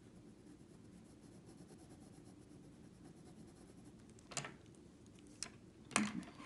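Pencil with hard 4H lead shading on drawing paper: faint, fine scratching strokes. Light clicks follow about four and a half and five and a half seconds in, and a louder knock comes near the end.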